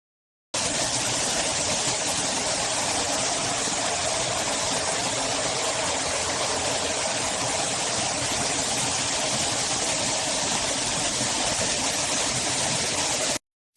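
Rainfall shower head running: a steady rush of falling water that starts suddenly about half a second in and cuts off just before the end.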